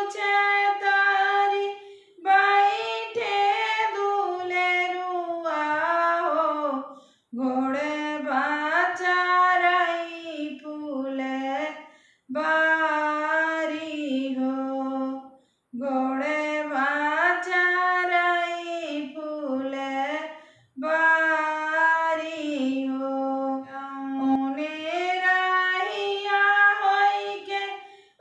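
A woman singing a Bagheli wedding folk song (beta vivah geet), solo and unaccompanied, in long held phrases with short pauses for breath between them.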